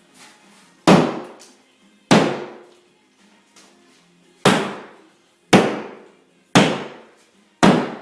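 Hammer blows on a drywall (sheetrock) wall: six sharp strikes a second or two apart, each dying away quickly.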